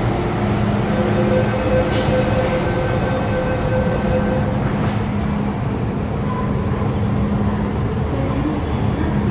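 MTR M-Train electric multiple unit running along the line: a steady rumble with a few steady tones from the running gear, and a sharp click about two seconds in.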